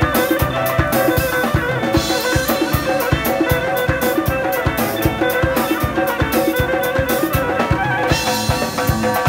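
Live band music: an electric violin plays the melody over a fast, steady beat from a drum kit, a frame drum and a double-headed drum.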